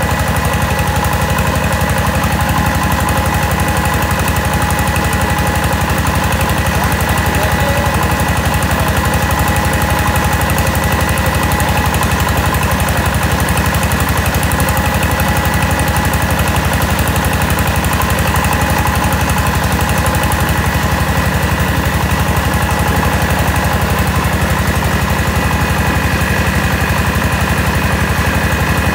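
Engine-driven mobile rice huller running steadily while husking paddy: a fast, even engine beat with a steady high whine from the spinning machinery.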